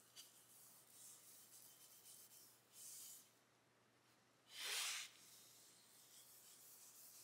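Near silence with faint rubbing and handling sounds. Two short swishes stand out, the louder one a little past the middle.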